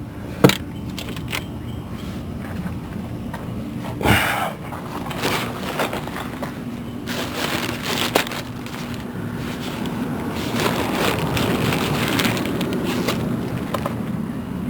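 Hand tools and metal parts clicking and knocking during repair work on a car's engine bay, with a sharp knock about half a second in and a longer scraping clatter about four seconds in, over a steady low hum.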